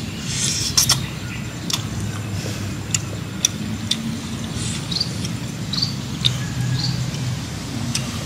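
Outdoor ambience: a steady low hum with a few short high chirps in the middle and scattered sharp clicks.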